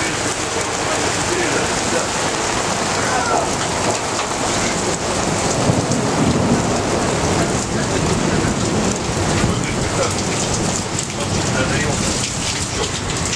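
Heavy thunderstorm rain pouring steadily, with a low rumble of thunder swelling about six seconds in.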